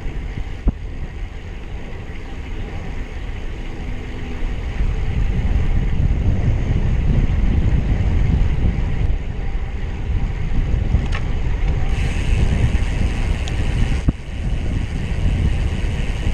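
Wind buffeting the microphone of a handlebar-mounted camera on a road bike moving at speed, with tyre noise from the road underneath. The rush grows louder about five seconds in.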